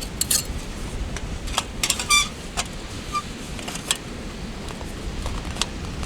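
Light titanium parts of a compact solo grill clinking and clicking together as it is set up, about a dozen separate metallic clicks. One strike about two seconds in rings with a clear metallic tone. A steady low rush runs underneath.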